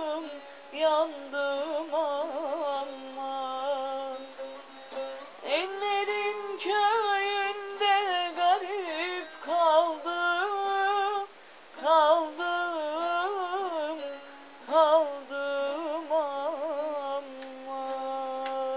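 A woman's voice singing a wordless, ornamented folk melody, with quick turns and wavering held notes, in short phrases separated by brief pauses.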